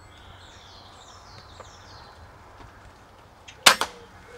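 A single shot from a moderated (silenced) air rifle: one short, sharp crack about three and a half seconds in, as the pellet strikes a grey squirrel in the head.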